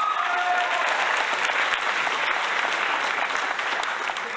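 Audience applause: a crowd clapping steadily, a dense crackle of many hands at once.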